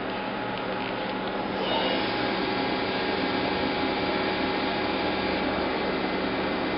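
Daewoo Lynx 210LC CNC lathe running, a steady machine hum with several whine tones. About two seconds in it gets louder as the spindle is brought up to 1000 RPM.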